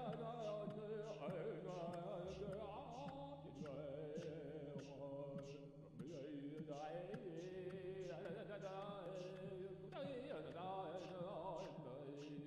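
Background music: a melody with wavering pitch over a steady drone, with a light tick about twice a second.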